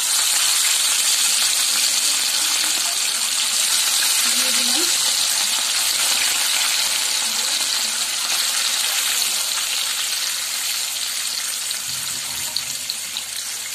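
Rohu fish steaks frying in hot mustard oil in a kadai, a loud steady sizzle. It starts suddenly as the first piece goes in and eases slightly over the following seconds.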